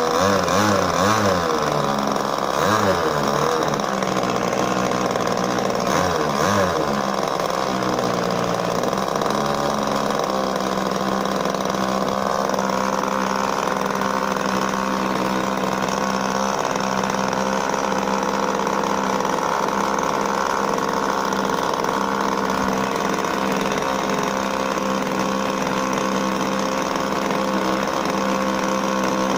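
The engine of an RC Sbach aerobatic model airplane running on the ground, its propeller spinning. For the first several seconds the engine speed wavers up and down, then it settles into a steady run.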